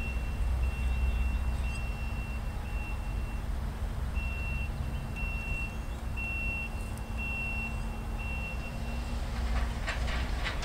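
Railroad grade-crossing warning bell ringing in even, high-pitched pulses, with a short break about three seconds in, over a low steady rumble.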